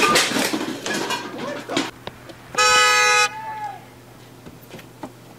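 A car horn sounds one steady blast of under a second, about two and a half seconds in, after a second or two of scattered noise.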